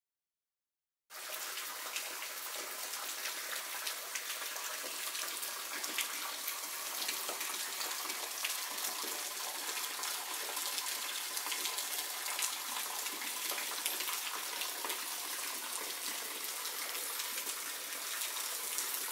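Rain water falling from the lip of a rock shelter overhang and rain in the woods: a steady hiss full of small drop impacts, starting about a second in.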